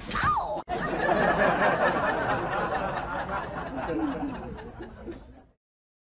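People laughing, with voices overlapping. The sound fades and then cuts off to silence about five and a half seconds in.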